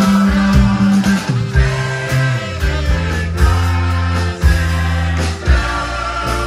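Live rock band playing, with drums, bass and electric guitar, under a large group of voices singing together at microphones.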